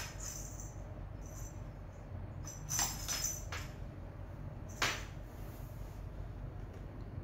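A cat pawing a feather toy on a hard floor: a few light rattles and clicks, a cluster about three seconds in and a single sharp one near five seconds, over a steady low hum.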